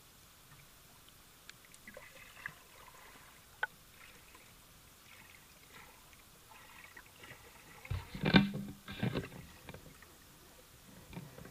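Muffled knocks and splashes heard underwater, with scattered faint ticks and then a loud cluster of knocks about eight seconds in, lasting a second and a half, as a hooked fish thrashes at the surface.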